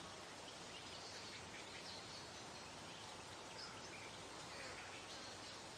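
Faint outdoor summer ambience: distant birds giving short chirps and snatches of song now and then over a soft, steady hiss.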